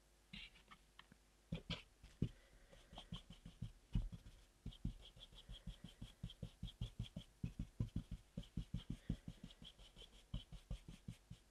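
Small soft paintbrush dusting petal dust onto a flowerpaste violet petal in quick, repetitive strokes, about four a second, faint. A few light taps come first, before the strokes start about two and a half seconds in.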